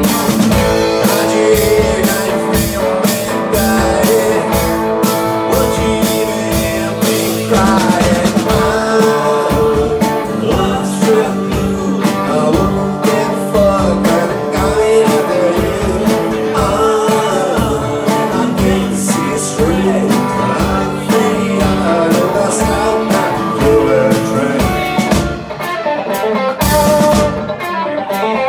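Live rock band playing: electric and acoustic guitars over a drum kit, with a steady beat.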